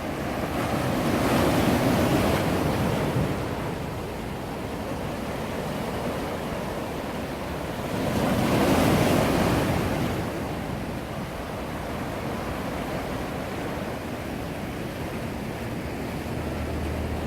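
Sea waves breaking and washing on the shore: two larger waves swell and break, about a second in and again about eight seconds in, with a steady surf wash between.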